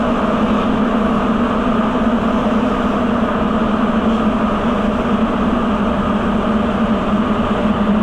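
Rubber-tyred Sapporo subway train running steadily through the tunnel, heard from inside the car: a continuous rumble of tyres and traction motors with a steady low hum.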